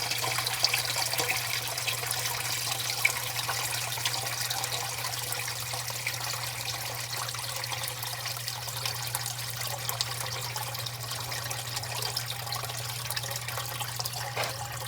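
Sump pump running in a flooded ejector pit, pumping the water down: churning, trickling water over a steady low motor hum. The float is dropping as the pit drains.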